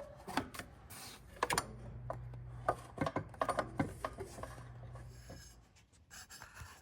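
Scattered light clicks, knocks and scraping of metal parts and hand tools being handled during reassembly, over a low steady hum that stops about five and a half seconds in.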